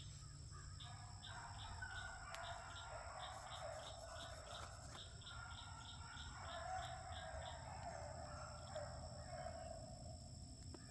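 Distant beagles baying in long drawn-out notes as the pack runs a rabbit, with a high chirping that repeats a couple of times a second.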